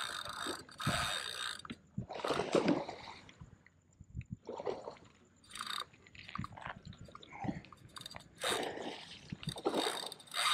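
Spinning reel being cranked in bursts, its gears turning, with handling noise on the rod, while a big snook is played on light 15 lb line.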